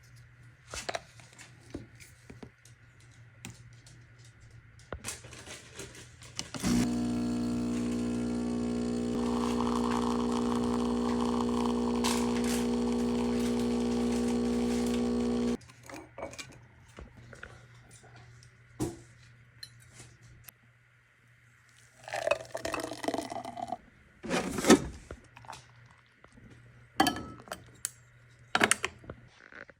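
Espresso machine's pump running with a steady hum for about nine seconds, starting about seven seconds in and cutting off suddenly, as it pulls a shot. Short clicks and knocks come before and after.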